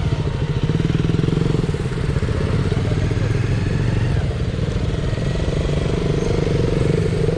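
Motorcycle engine running steadily, with a rapid, even firing beat.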